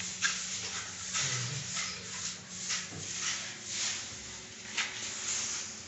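Soft, irregular scuffing and rustling, about every half second, over a faint steady low hum.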